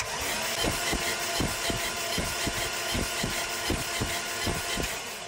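5.7-litre Hemi V8 being cranked over on its starter without firing, with the valve cover off: a steady starter whine with a regular pulse about four times a second. The engine has no compression on cylinder 8, which the owner puts down to a valve hanging open.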